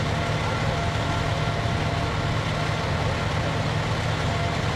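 Fire engine's diesel engine idling steadily: a low, even rumble with a faint steady whine above it.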